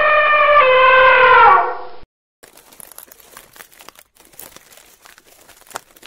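Elephant trumpeting: one long call that holds its pitch, dips a little partway through and falls away as it ends, about two seconds in. Faint scattered crackling and rustling follows.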